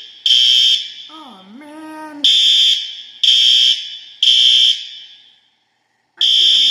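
Building fire alarm sounding in the temporal-three evacuation pattern: loud, high-pitched beeps about half a second long, three in a row a second apart, then a pause of about a second and a half, repeating. A person yells briefly in the pause about a second in.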